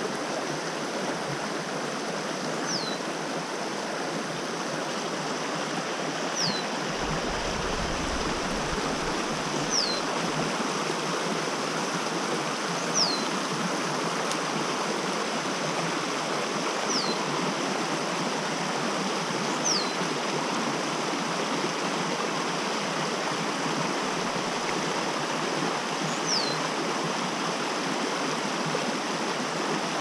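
Small creek rushing steadily over a shallow riffle. A bird repeats a short, high whistle that falls in pitch, about every three seconds.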